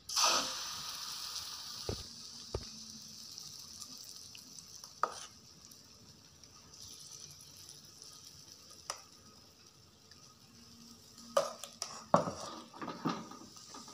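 Martabak batter poured into a hot, oiled nonstick frying pan: a sudden loud sizzle at the start that fades to a steady hiss. A few light clicks and knocks come through the hiss, with louder ones near the end.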